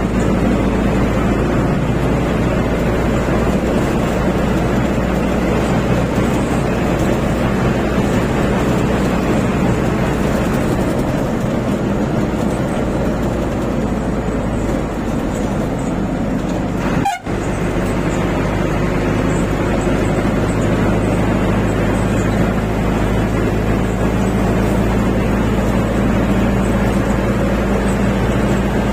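Van engine running and tyre noise, heard from inside the cab while driving: a steady drone that cuts out for an instant about seventeen seconds in.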